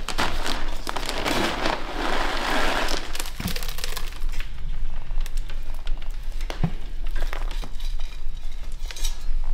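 Akadama granules pouring and rattling out of a crinkling plastic bag for the first few seconds, then a small bonsai soil scoop digging into the bag and tipping the grains onto the soil, with scattered small clicks of falling granules.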